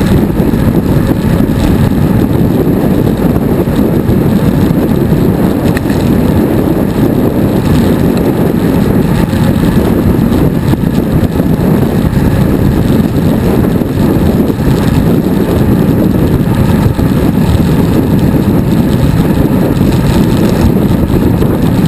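Wind buffeting the microphone of a camera mounted on a road bicycle moving at speed: a steady, loud, low rumble.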